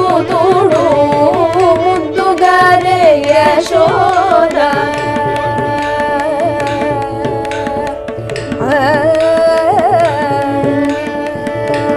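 Carnatic devotional song in raga Kuranji, with group vocals, violin and mridangam. The ornamented melody settles onto a long held note about four and a half seconds in while the mridangam keeps playing, with a short ornamented phrase returning near the end.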